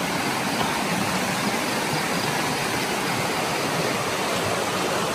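River water rushing over rocks in small rapids, a steady rush of running water.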